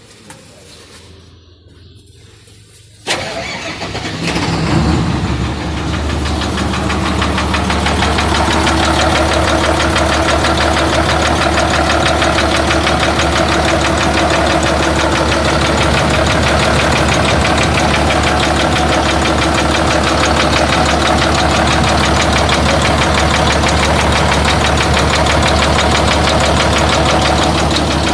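Freshly overhauled Hino straight-six diesel engine started about three seconds in, catching and building up over a few seconds, then running steadily on test.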